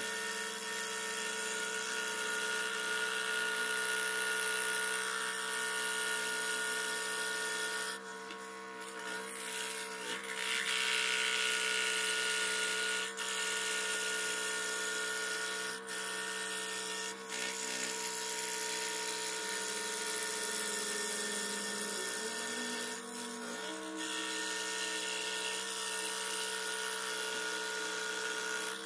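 Electric scroll saw running, its reciprocating blade cutting through a 6 mm wooden board with a steady buzz and hiss. The sound dips briefly a few times and then picks up again.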